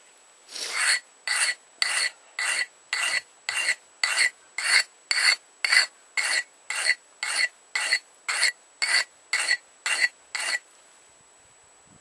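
Steel cold chisel being stroked on a sharpening stone: about nineteen even scraping strokes at roughly two a second, each with a faint metallic ring, stopping about a second and a half before the end. The chisel's chipped edge is being resharpened to a blunt, wedge-like angle for cutting steel.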